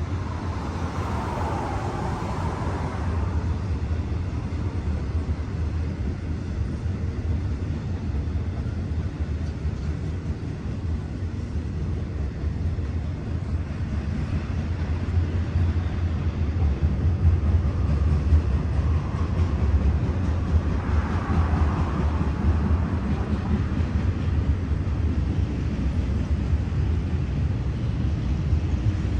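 Norfolk Southern freight train running with a steady low rumble that grows a little louder in the second half. A brief higher-pitched sound rises over it twice, about two seconds in and again about twenty seconds in.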